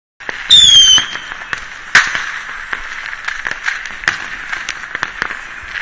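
Fireworks: scattered sharp bangs and cracks over a steady hiss, the sharpest bang about two seconds in. It opens with a loud, short falling whistle.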